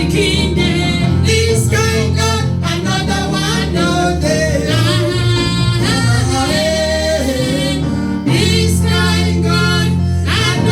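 A church choir singing gospel music over instrumental accompaniment, with a steady bass line under the voices.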